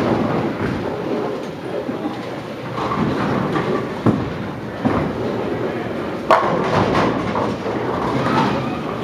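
Bowling ball released onto the lane about four seconds in, rolling, then crashing into the pins a little over six seconds in for a strike, with the pins clattering after the hit. Under it the steady rumble and clatter of the alley's other lanes and pinsetters.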